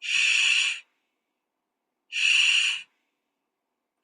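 A person saying the voiceless 'sh' consonant (/ʃ/) on its own, twice: two steady hissing 'shhh' sounds about three quarters of a second each, a little over a second apart.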